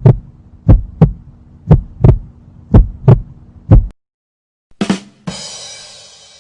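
Heartbeat sound effect: low double thumps (lub-dub) about once a second, for about four seconds. Then a 'ba dum tss' rimshot sting: two quick drum hits followed by a cymbal that rings out and fades.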